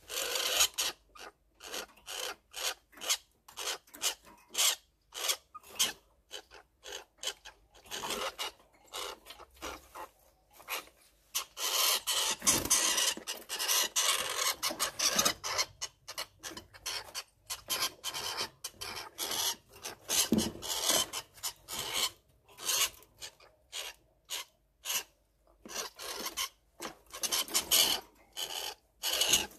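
Dense, irregular rasping and rubbing scratches in quick runs with short gaps, from a hand rummaging in a dry fibre nest and handling a young striped squirrel in a wire cage. The scratching is most continuous for a few seconds around the middle.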